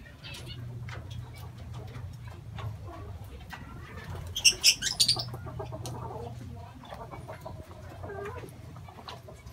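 A flock of lovebirds pecking and tearing at moringa leaves on a concrete floor, making many small scattered clicks over a low steady hum. About halfway through, a bird flutters up and a short burst of shrill lovebird chirps rings out, the loudest sound here.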